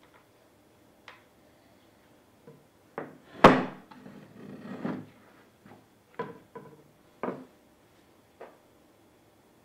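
Parts of a circular saw being handled and set down: a series of short clicks and knocks, the loudest about three and a half seconds in, followed by about a second of scraping.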